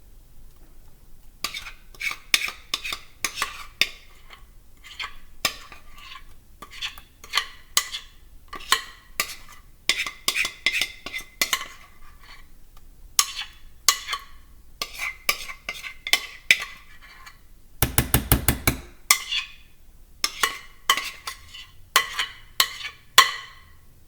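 A kitchen utensil scraping and clicking against a mixing bowl as thick cake batter is scraped out into a loaf pan, in irregular strokes. About three quarters of the way through comes a quick run of about ten sharp taps.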